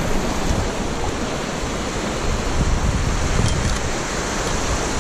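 Small surf washing and breaking around a kayak in the shallows, with steady wind buffeting the microphone.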